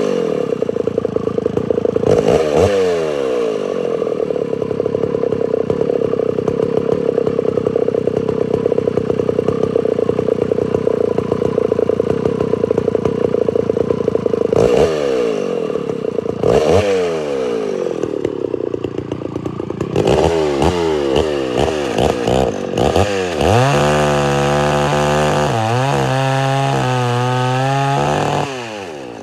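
Homelite Super XL-925 82cc two-stroke chainsaw engine revved at full throttle with no load and the governor blocked, running lean and starving for fuel, its revs falling away and climbing again a few times. In the last few seconds it settles to a lower, uneven full-throttle run: four-stroking, which protects it from over-revving.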